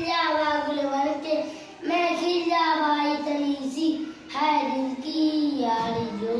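A young boy singing solo and unaccompanied, in held, gliding notes, with short breaths between phrases about two seconds and about four and a half seconds in.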